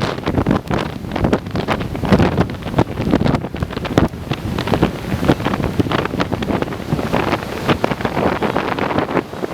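Strong storm wind of about 45-50 mph gusting and buffeting hard against the microphone, with an irregular rumble and crackle that never settles.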